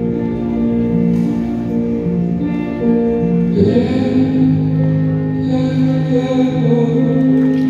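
Recorded show music for a color guard routine, played through the arena's sound system: slow held chords that swell into a fuller, brighter sound about three and a half seconds in.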